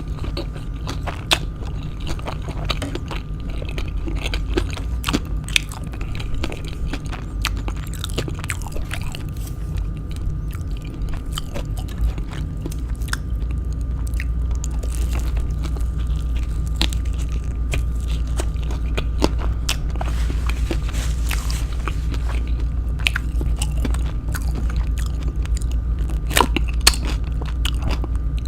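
Close-miked eating sounds: biting into and chewing kwek kwek, battered deep-fried quail eggs, with many short crunchy bites and mouth clicks. A steady low hum runs underneath and gets louder about halfway through.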